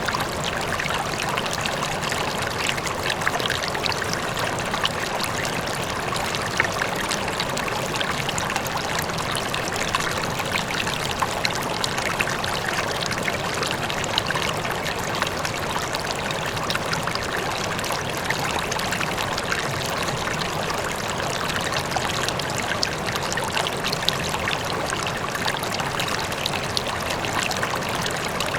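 A river flowing steadily, rushing and splashing with many small sharp splashes, with a faint waterfall in the background.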